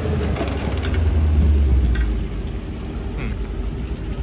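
Jeep Grand Cherokee's engine running with a low rumble as it backs a boat trailer down the ramp into the water. The rumble is strongest for the first two seconds or so, then eases.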